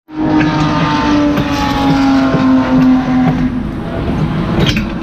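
BMW E36 race car's engine heard from inside its stripped, caged cabin, running with a steady note that sinks slightly in pitch, then shifts about three and a half seconds in. A few sharp knocks and rattles sound over it, the loudest near the end.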